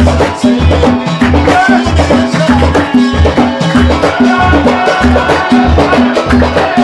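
Gulf folk band music in the khabiti rhythm: a steady, evenly repeating deep drum beat under a melody.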